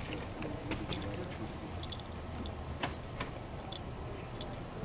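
Scattered light clicks and taps over a low steady rumble: handling noises as an honor guard works at a folding metal casket cart behind the hearse.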